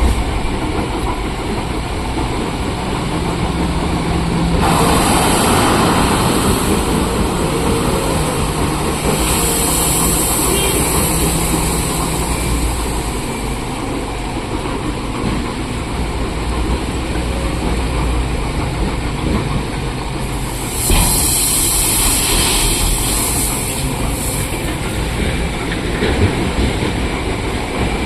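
Heavy diesel earthmoving machinery running steadily with a low engine drone, broken by three spells of louder high-pitched hissing a few seconds long and a sharp knock about two-thirds of the way through.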